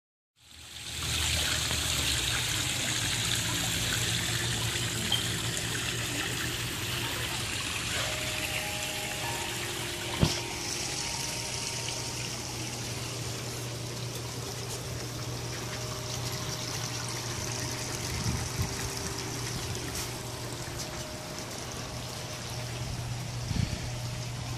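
Small garden waterfall spilling from a spillway basin and trickling over rocks and a pebble streambed: a steady flow of water, with a low hum underneath and one sharp knock about ten seconds in.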